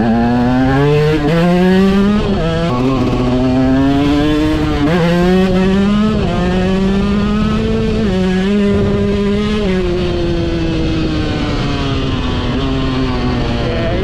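2006 KTM EXC 125 two-stroke single-cylinder engine being ridden, its revs rising and falling several times, then easing down over the last few seconds.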